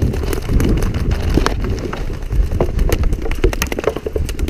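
Running footsteps on grass with the heavy rumble of a jostled body-worn camera during a sprint, and scattered sharp shots from game guns.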